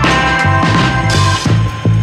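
Loud background music with a steady beat and sustained chords.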